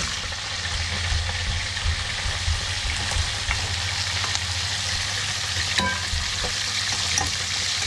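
Small whole fish deep-frying in hot oil in a frying pan, a steady sizzle and spatter. From about halfway, a ladle stirs onions, garlic and ginger in a second pot, with a few light clicks.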